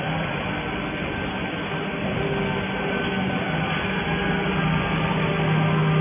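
Steady electrical hum and machine drone from a robotic laser welding setup while it welds a seam on copper plate, with no breaks or sudden noises.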